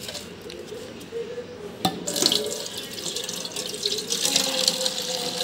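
A hand swishes in water in a steel bowl. About two seconds in, after a sharp click, tap water begins running and splashing into the bowl, mixing and foaming the detergent powder.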